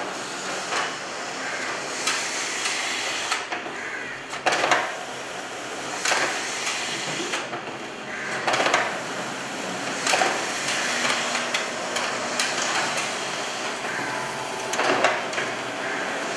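HP LaserJet M436nda A3 copier running a two-sided copy job. Its duplex automatic document feeder and print engine make a steady mechanical whir, with a louder paper-feeding swish every couple of seconds as sheets are pulled through and flipped.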